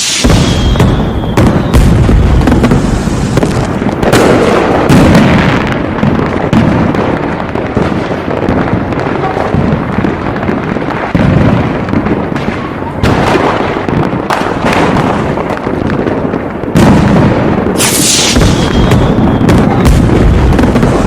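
Aerial fireworks bursting in a dense, nearly continuous barrage of overlapping booms and crackles, swelling into heavier volleys several times.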